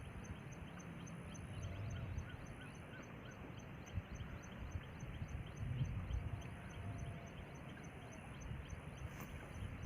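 Faint outdoor background noise with a steady, high, regular ticking, about four to five ticks a second.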